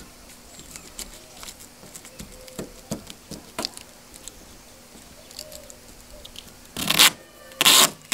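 Duct tape being pulled off the roll in two loud, short rips near the end, after a run of small crinkles and taps as tape and fly net are pressed down by hand.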